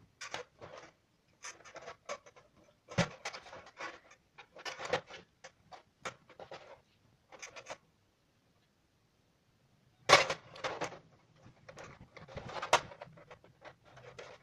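LED backlight strips being handled and laid onto a TV's sheet-metal back panel: irregular light clicks, taps and rustles, with a few sharper knocks, and a pause of about two seconds past the middle.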